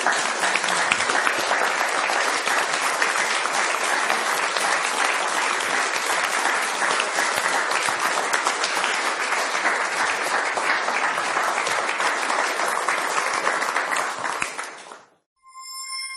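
Audience applauding steadily, a dense patter of many hands clapping that cuts off abruptly near the end. A few steady, held musical tones start just after it stops.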